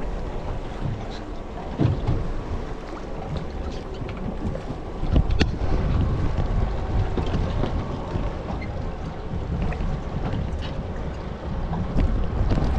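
Motorboat underway: the engine runs steadily under wind buffeting the microphone, with a few knocks about two and five seconds in.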